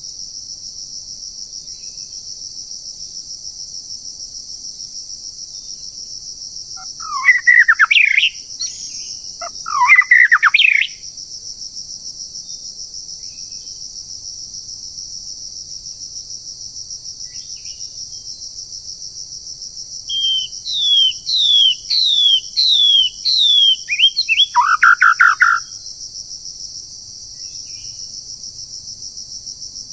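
Wild songbird singing: two loud, quick phrases a few seconds apart, then after a long pause a run of about seven quick rising-and-falling whistled notes ending in a lower phrase. A steady high-pitched insect drone runs underneath throughout.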